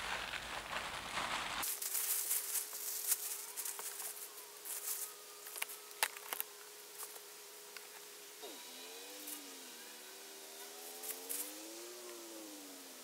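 A plastic tarp being pulled and rustled, then a hollow whistling howl like wind: a steady tone at first that, from about two-thirds of the way through, slowly rises and falls in pitch, with a few light knocks and crinkles over it.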